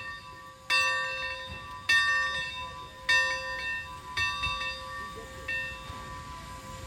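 Steam locomotive bell of ATSF 3751 ringing in slow, even strokes, five strikes about a second apart, the last ones weaker as the ringing dies away.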